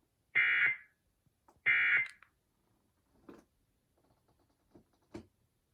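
EAS end-of-message data bursts from a weather radio: two short, buzzy digital tone bursts about half a second each, a little over a second apart, marking the end of the test alert. A few faint clicks follow.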